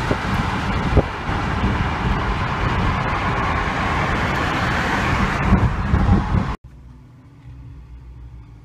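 Loud, steady road and wind noise from a moving car, with a few thumps, cutting off suddenly about six and a half seconds in to a quiet steady hum.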